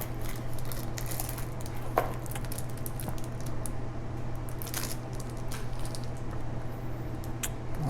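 Small scattered clicks and rustles of a folding pocket multi-tool being handled and its tools unfolded, over a steady low hum.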